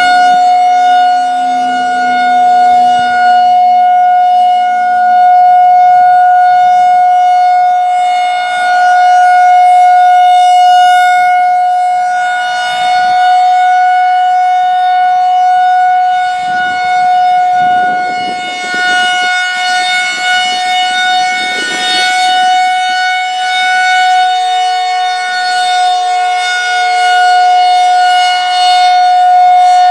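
Federal Signal 2001-130 tornado warning siren sounding the steady alert tone of its monthly test: one high, loud tone held at a constant pitch, swelling and fading gently as the rotating siren head turns.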